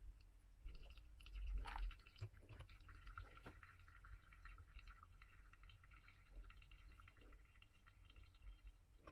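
Faint trickle of water during a pour-over coffee brew, with a few light clicks and knocks.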